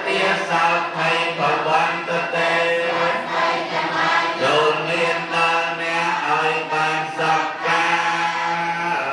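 Buddhist monks chanting together in a steady, low monotone, one voice on a microphone leading the group.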